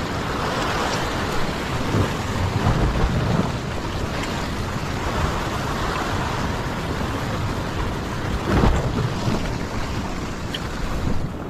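Sea surf washing against a rock ledge, mixed with wind rumbling on the microphone, with louder surges about two to three seconds in and again near nine seconds in.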